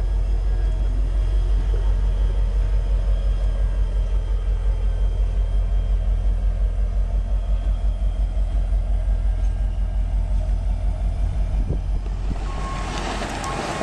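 A CSX diesel locomotive passing over a level crossing: a loud, low rumble that pulses a few times a second. Near the end this gives way to a brighter hiss and the start of a reversing beeper's evenly spaced beeps.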